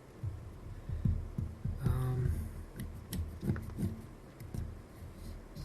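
Scraping and picking old foam light seals out of a Pentax K1000 camera body: irregular soft knocks and thuds with a few thin scratches. A short hummed murmur comes about two seconds in.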